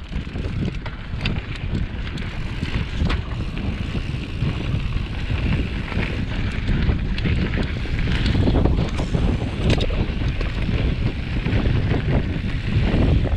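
Wind rushing over a GoPro's microphone as a mountain bike rolls down a dry dirt trail: a steady low rumble of knobby tyres on dirt, with scattered sharp clicks and rattles from the bike.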